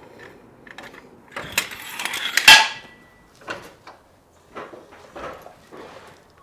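Metal equipment being handled: a scraping clatter starting about a second and a half in, ending in a loud ringing metallic clank, followed by a few lighter knocks.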